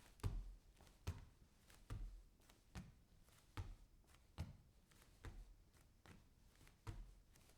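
Bare feet walking on a wooden floor: soft low thuds of steps at an even pace, a bit more than one step a second, about nine steps in all.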